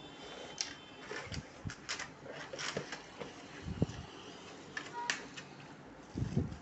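Irregular clicks, taps and rustles of packaging and plastic parts of a hair trimmer kit being handled, with a low thump about four seconds in and a louder knock near the end.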